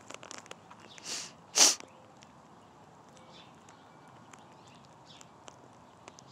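Two short, breathy sniffs close to the microphone about a second in, the second one louder. A few light clicks sound in the first half second.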